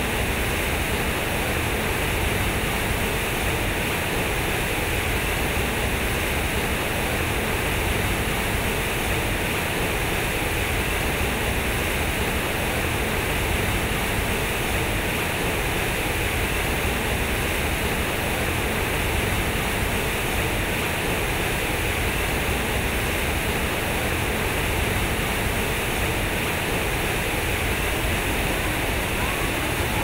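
Water pouring from the square concrete spouts of a large fountain and falling into its pool: a steady, even rush of splashing water.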